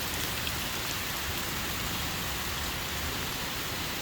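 Steady rain falling, an even wash of noise with a few sharp drop taps scattered through it.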